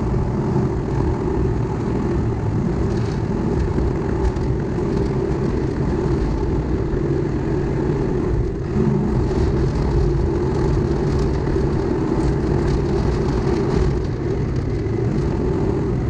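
CAT D5 crawler dozer's diesel engine running steadily under load as the blade pushes dirt, with a brief dip about halfway through.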